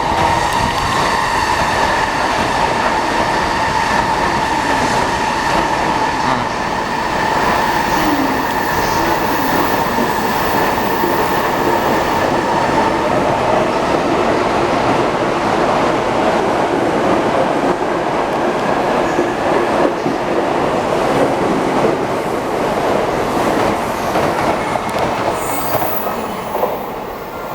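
E259 series Narita Express electric train pulling out of the station and passing along the platform: wheels rolling on the rails under a steady electric whine, with the motor pitch rising as the train gathers speed, easing off near the end.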